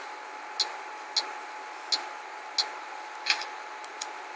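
Light, sharp taps of fingers on a tablet touchscreen, about one every two-thirds of a second with a quick double tap near the end, over a faint steady hum.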